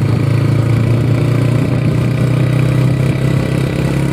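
Honda CB150F motorcycle's single-cylinder engine running steadily with an even, unchanging hum.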